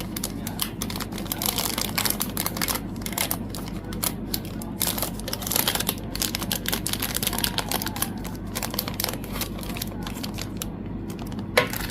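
Photocards and their plastic packaging being handled: irregular crinkling and light clicks and taps of card and plastic, with one sharper click near the end.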